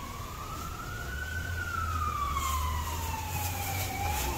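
An emergency-vehicle siren in a slow wail: the pitch climbs for about a second, falls slowly for nearly three seconds, then starts to climb again near the end. A steady low rumble runs underneath.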